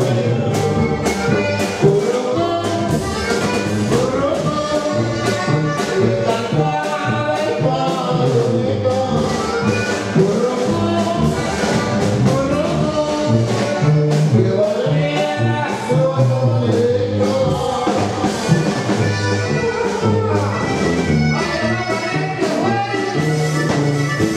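Live norteño band playing an upbeat dance song: a sousaphone bass line bouncing under accordion and guitar, with a drum kit keeping a steady beat.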